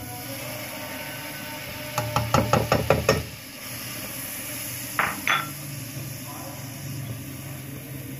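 A spoon clinking against a glass bowl and a nonstick pot as butter is scraped off into the pot and stirred: a quick run of about eight taps around two seconds in, then two more about five seconds in, over a steady low hum.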